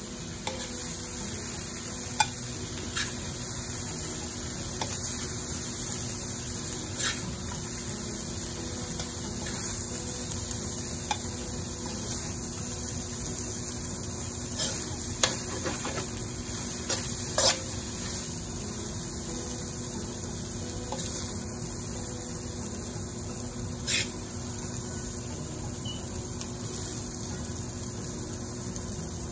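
Stir-fried vegetables sizzling in a hot wok while a spatula scrapes the pan and clinks against the wok and a plate as the food is scooped out, with a dozen or so sharp clicks over a steady hiss. A faint steady hum runs underneath.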